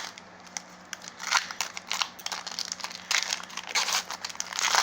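Foil wrapper of a trading-card booster pack crinkling in several short bursts as it is handled and opened.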